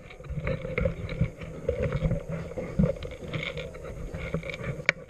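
Footsteps and the rustle of gear and clothing as an airsoft player moves through a building, with irregular knocks and scrapes and one sharp click near the end.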